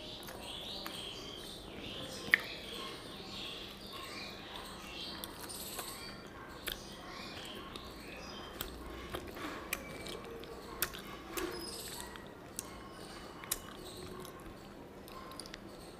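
Close-up eating sounds of someone eating a bony katla fish tail by hand: chewing, sucking on fingers and bones, and a scatter of sharp mouth clicks and smacks. The loudest click comes about two seconds in.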